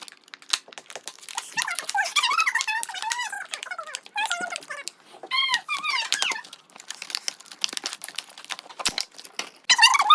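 Plastic packaging crinkling and rustling as a squishy toy is unwrapped, with high wavering squeaks for a few seconds in the middle.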